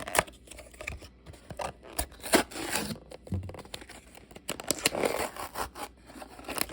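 A toy blind box's packaging being opened by hand: irregular tearing, scraping and crinkling noises mixed with sharp clicks.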